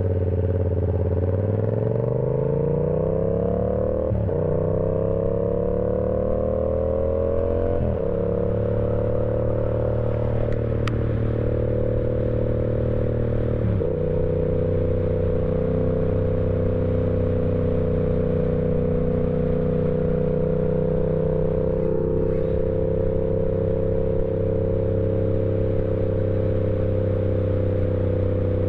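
Yamaha R7 motorcycle engine accelerating through the gears: the revs climb and drop back with upshifts about 4, 8 and 14 seconds in, each climb gentler than the last. After that it holds a steady cruising speed.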